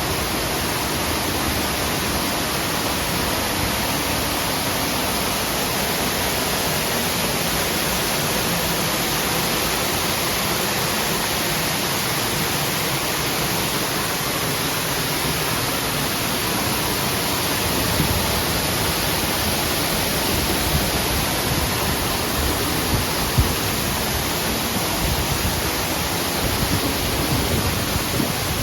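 Steady rushing of a waterfall, an even roar of falling water, with a few small knocks in the second half.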